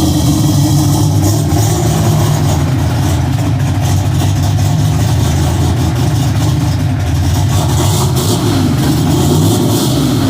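1986 Ford Mustang 5.0 V8 running steadily at a low, even idle.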